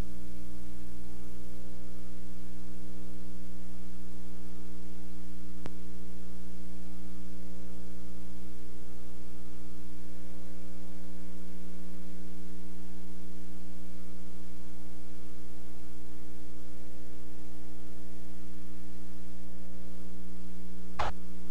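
Steady electrical mains hum on the audio track, a low buzz made of a few fixed tones, with a faint click about six seconds in and another click near the end.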